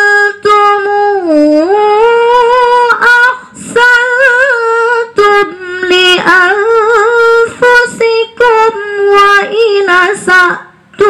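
A woman reciting the Quran in the murattal style into a microphone. Her voice is held on long, melodic notes that bend and slide, in phrases broken by short pauses for breath.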